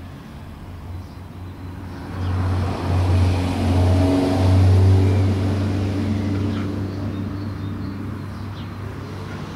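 A motor vehicle's engine passing by: a low hum that swells from about two seconds in, is loudest around the middle and fades away.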